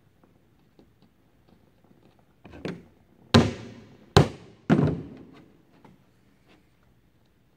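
Claw hammer striking the new wooden patch planking on a wood-and-canvas canoe hull: one lighter blow, then three hard blows in quick succession, each with a short ringing tail.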